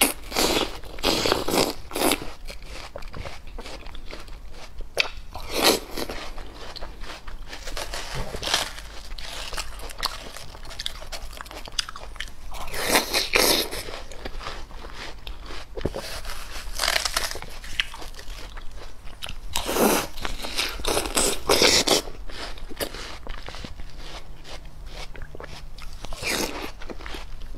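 Biting and chewing of crisp, juicy watermelon flesh: wet crunching bites in clusters a few seconds apart.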